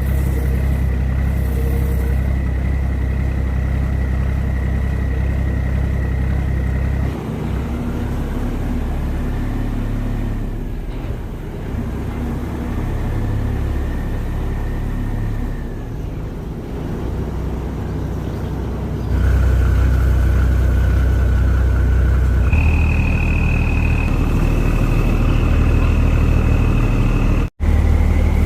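Boat engine running steadily with a thin high whine over its low rumble. Its note changes about seven seconds in, then again with a louder step near twenty seconds. It cuts out for a split second near the end.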